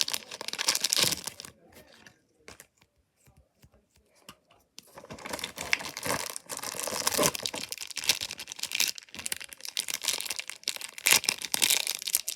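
Packaging being crinkled and torn open by hand, in a burst at the start, a quieter pause with a few small clicks, then steady crinkling and tearing from about five seconds in.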